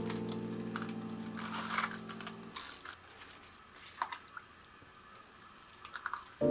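Soft background music fades out about two and a half seconds in, leaving faint water sounds: spinach stirred with chopsticks in a pot of hot water, and a few small splashes and drips as the bunch is lifted out near the end.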